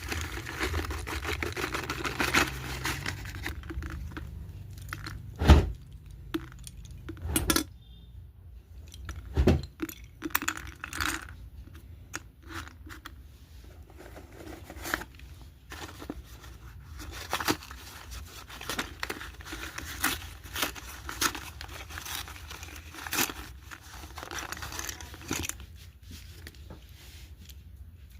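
Packaging of a slate pencil pack being torn open and crinkled, with irregular sharp clicks and knocks throughout; the loudest knocks come about five, seven and nine seconds in.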